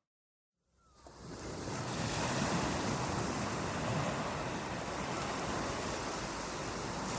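Steady rush of ocean surf mixed with rain, fading in from a brief silence in the first second.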